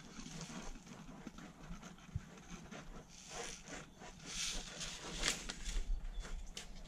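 Close rustling of a folded paper seed packet and a plastic strip being handled, with scattered small ticks and taps, a few sharper ones about two thirds of the way in.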